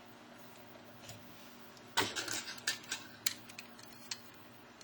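Small hard objects being handled: a quick run of sharp clicks and scrapes about two seconds in, then one more click near the end.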